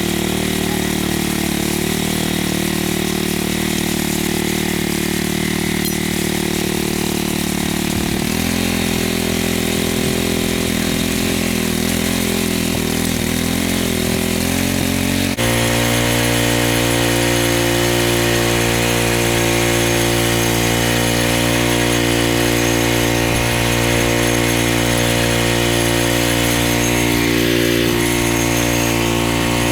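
Petrol-engined power trowel running steadily as it works over the fresh concrete slab. Its engine note changes abruptly about halfway through.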